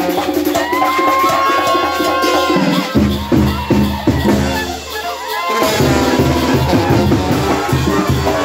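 A brass band (banda de viento) with clarinets, saxophone, trumpets, trombones, sousaphones and drums plays a lively tune. It opens on long held high notes. About three seconds in, the sousaphones and drums come in with a strong, even beat, thin out briefly, and come back fuller a little later.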